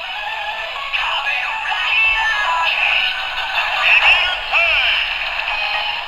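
A Kamen Rider DX toy transformation belt, with the Geiz coward-form Ridewatch inserted, playing its electronic standby music and sound effects with a synthesized voice. It has the thin sound of a small built-in speaker, and warbling pitch sweeps come near the end.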